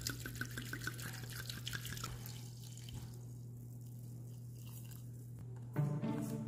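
Red wine glugging out of a bottle neck and splashing into a stainless steel saucepan of sliced apples and citrus for mulled wine, in a quick even run of glugs for about two seconds, then a quieter, smoother pour. String music comes in near the end.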